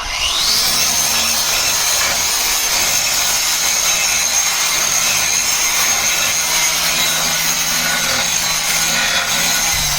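Angle grinder spinning up with a rising whine, then running steadily at full speed with a high whine over a harsh grinding noise.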